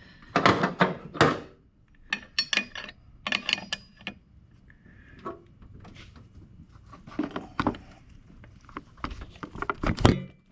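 Irregular clicks and knocks of a 15 mm wrench working the serpentine belt tensioner on a GM 3800 V6 while the belt is slipped on, with the loudest knock near the end.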